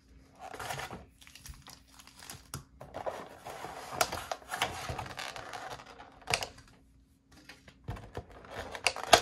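Clear plastic blister tray of a trading-card collection box being handled, crinkling and flexing with sharp clicks in several bouts, with a short lull about seven seconds in.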